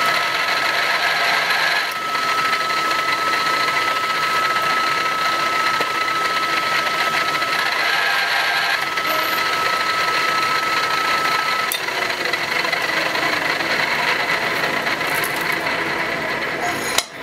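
Drill press running: a steady mechanical whir with a thin high whine that stops about twelve seconds in, while the whir carries on.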